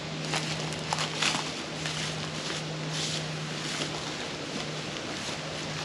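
Footsteps crunching on dry leaf litter and bush brushing against a hiker pushing through scrub, in short rustles every second or so over a steady low hum.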